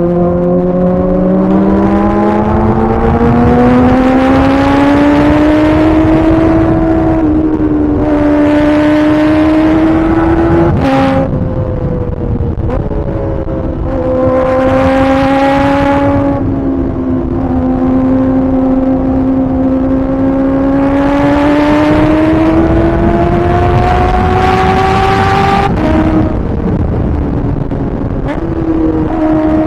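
Kawasaki ZX-4RR's 399 cc inline-four pulling hard at high revs, its pitch climbing in long steady rises with a short dip at each gear shift, several times over.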